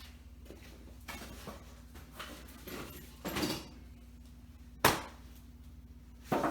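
Scattered knocks and clicks of hands and tools working at a car's door trim, with a sharp click, the loudest sound, just before five seconds in and another near the end, over a steady low hum.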